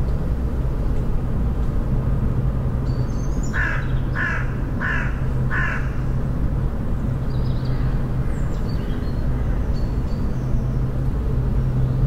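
A bird gives four loud, harsh calls in a row about three and a half seconds in, with a few faint short high chirps from small birds. A steady low hum runs underneath throughout.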